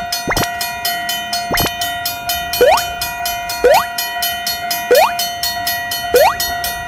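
Japanese railroad crossing alarm ringing in quick, even strokes over several steady electronic tones. Cartoon rising-swoop sound effects repeat about once a second from around two seconds in, and two sharp thuds come in the first two seconds.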